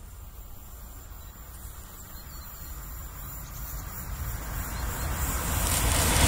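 Train approaching: a low rumble that grows steadily louder, with the noise of the train on the rails filling in toward the end.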